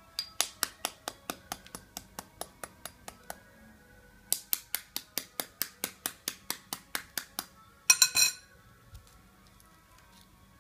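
Metal spoon tapping rapidly on a hard-boiled egg's shell, about five light taps a second in two runs of about three seconds each, cracking the shell all over so it peels off easily. A brief louder clatter comes about eight seconds in.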